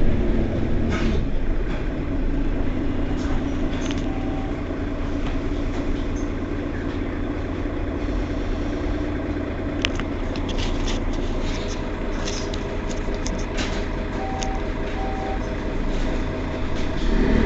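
Mercedes-Benz Citaro Facelift city bus running with a steady low engine drone. About ten seconds in there is a sharp click, then a scatter of light ticks and rattles, and a few short faint beeps.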